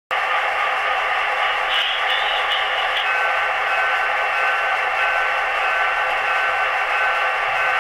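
Sound decoder in an HO scale SD35 model diesel locomotive playing its idling diesel engine through a tiny speaker: a steady hissy drone with faint steady tones, thin and lacking any low end.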